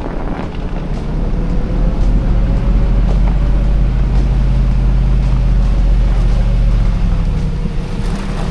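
Lexus GX470's 4.7-litre V8 running as the truck drives, a steady low drone that grows louder about two seconds in and eases off near the end.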